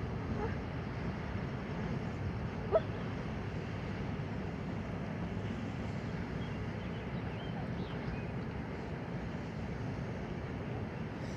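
Steady low outdoor background rumble with no speech, and one sharp click about three seconds in.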